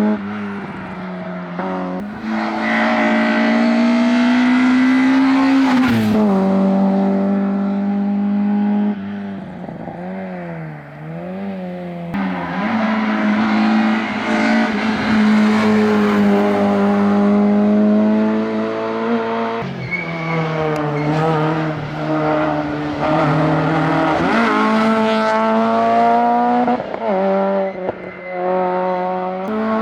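Rally car engines run hard at high revs on an asphalt stage, the pitch climbing under throttle and dropping sharply at gear changes and braking, with tyres squealing at times.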